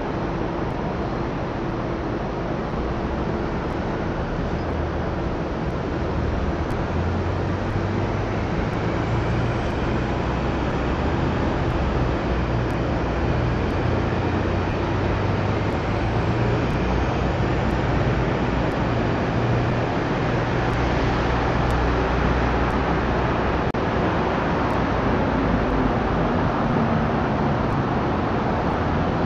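Steady rumble of city traffic, a continuous noisy wash with no separate events, growing slightly louder.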